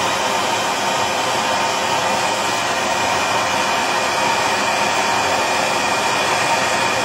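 Plumber's soldering torch burning with a steady hiss while heating a brass shower-valve fitting for soldering.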